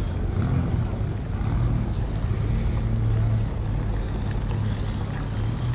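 Steady low rumble of city traffic, with a vehicle engine hum that is strongest midway.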